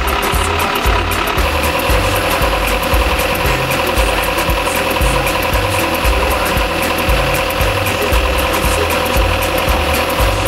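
Hydraulic drilling rig's engine and hydraulic drive running steadily, with a steady whine over a low rumble, while the rig lifts the drill string and a core sample out of the ground.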